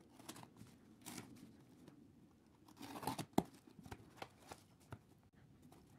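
Cardboard shipping box being cut open with a craft knife: faint scratchy strokes of the blade slitting the packing tape, then cardboard flaps being pulled open, with a sharp click a little past three seconds in.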